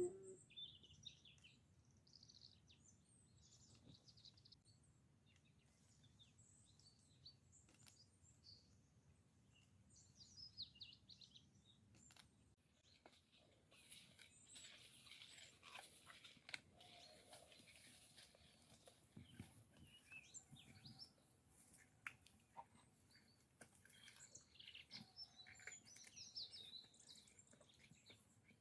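Faint forest birdsong: short, scattered high chirps and calls.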